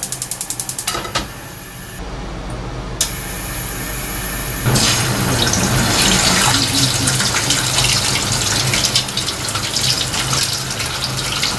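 A gas stove's igniter clicks rapidly for about a second. About five seconds in, hot oil bursts into loud sizzling with crackles as starch-coated pufferfish pieces go into a tilted frying pan, and the frying goes on.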